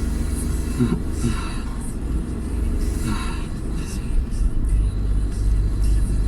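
Suzuki Jimny JB23 running with a steady low rumble, with short higher-pitched sounds coming and going about a second and about three seconds in: the strange abnormal noise the vehicle is making.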